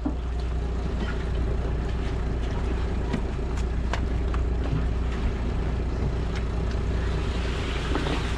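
Fishing boat's engine running steadily: a constant low drone with a faint steady hum above it, and a few light clicks.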